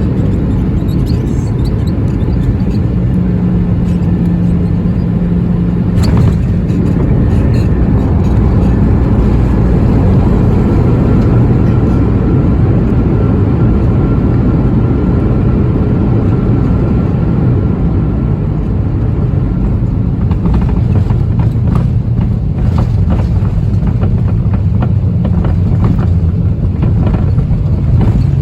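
Loud, steady low rumble of a Boeing 737-800's CFM56 engines and airflow heard from inside the cabin during the landing. There is a sharp knock about six seconds in, and short rattles through the last several seconds.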